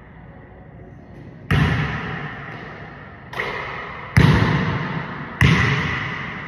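Basketball hitting and bouncing on a hardwood gym floor: four loud bangs spread over a few seconds, each ringing out in a long echo through the large hall.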